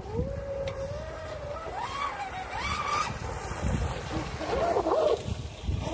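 Electric RC catamaran's brushless motor (stock SSS 3674, 2075 kV, on a 6S lipo) whining as the boat runs at speed. The whine climbs in pitch about two seconds in and wavers near the end.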